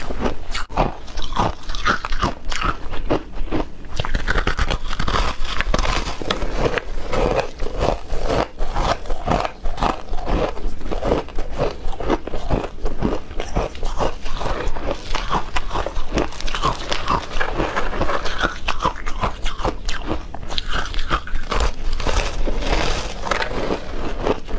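Close-miked crunching and chewing of frozen ice chunks dusted with powder, a dense run of sharp, irregular crunches as each mouthful is bitten and ground down.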